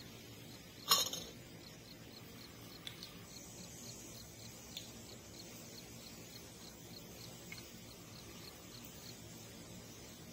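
A single sharp crack about a second in, followed by a few much fainter pops, over a steady quiet outdoor background with a faint high ticking repeating about three times a second.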